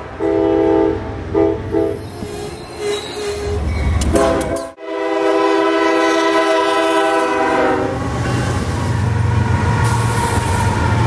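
Diesel locomotive air horns sounding in chords, with a sudden cut about five seconds in to another horn blast. After the horn stops, a locomotive passes close with a low, steady engine rumble.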